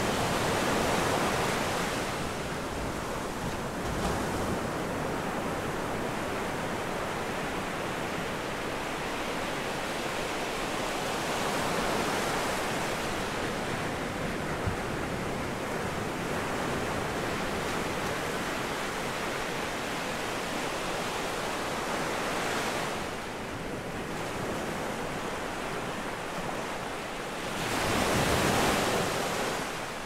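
Calm sea waves breaking and washing ashore in a continuous rush of surf that swells and falls with each wave, the loudest swell near the end.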